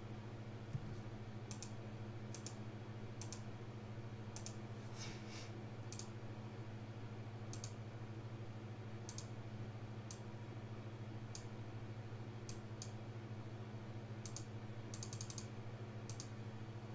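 Computer mouse clicks, sharp and irregular, a dozen or so spread out with a quick cluster near the end, over a steady low electrical hum.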